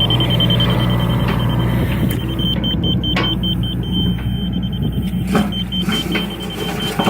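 John Deere excavator's diesel engine running steadily under work, with a few sharp knocks near the middle. Over it a high electronic beep from a grade laser receiver, sometimes a steady tone and sometimes rapid pulses, signalling how far off grade the dig is.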